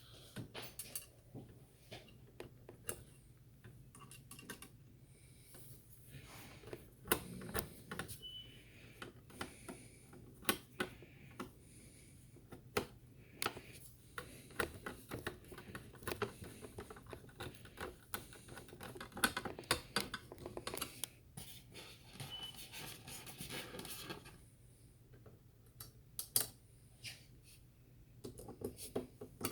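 Small screws being turned in with a screwdriver and hardware handled: irregular light clicks, ticks and scrapes of metal and plastic, easing off for a couple of seconds near the end.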